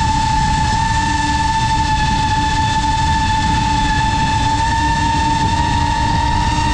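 FPV quadcopter's brushless motors and propellers holding a steady high whine that creeps slightly up in pitch, over a low rush of wind noise.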